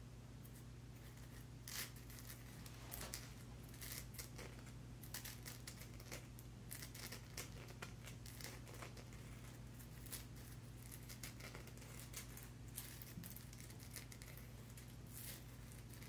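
Fingernails and fingertips scratching, rubbing and tapping over a rough raw labradorite stone: a long run of faint, short, dry scratches and clicks, over a steady low hum.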